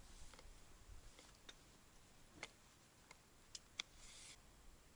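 Near silence with a handful of faint, sharp clicks and a brief rustle about four seconds in, from a tripod and optics being handled and adjusted.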